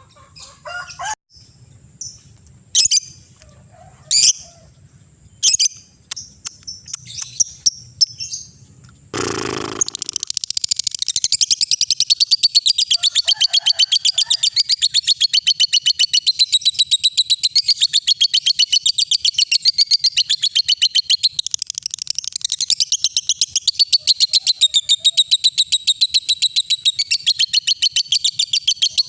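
Lovebird giving scattered sharp chirps, then, after a short loud noisy burst about nine seconds in, breaking into a long unbroken, rapid high chattering trill: the drawn-out 'ngekek' song.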